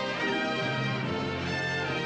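Instrumental music with an orchestral sound, playing steadily.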